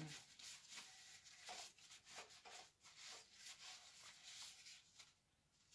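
Faint rubbing of a cloth wiping the metal front of a coffee roaster, in short repeated strokes that stop about five seconds in.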